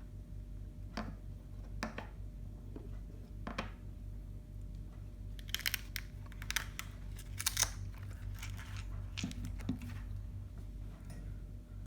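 Hand tools being handled: a few light clicks and knocks, then several seconds of crinkling and rustling, like wrapping being handled, about halfway through, over a steady low hum.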